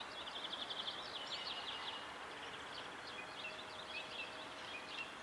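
Small songbirds twittering in quick repeated chirps and trills over a faint steady background of outdoor noise.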